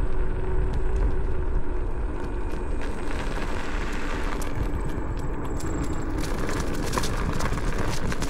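A vehicle ridden along a rough dirt trail, recorded on board: a steady rumble with many small clicks and rattles from the bumpy ground.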